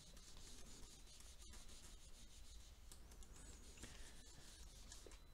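Faint rubbing of a whiteboard eraser wiping marker off the board.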